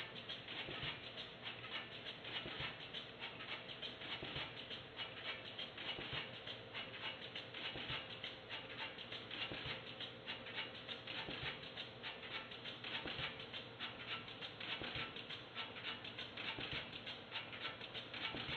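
Pouch-converting machine running: a dense, rapid clicking of its moving parts over a faint steady hum.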